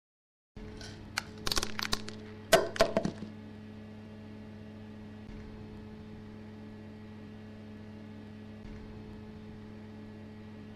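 A quick run of sharp cracks and clatters of hard objects hitting a tiled floor, about one to three seconds in, loudest near the end of the run. A steady low hum goes on underneath and after.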